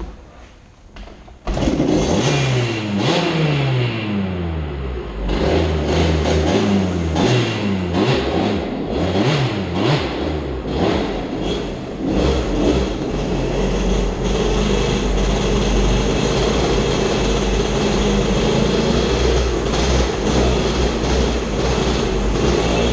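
Off-road vehicle engine starting up suddenly about a second and a half in, then revving up and down several times. From about halfway it runs steadily and loudly under load.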